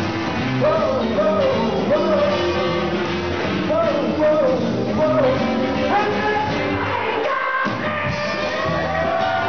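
Live rock and roll band with a horn section: saxophones and trumpet over upright bass, electric guitar and drums, with a singer's voice. The bass and drums drop out briefly a little past seven seconds in, like a short stop-time break, then the band comes back in.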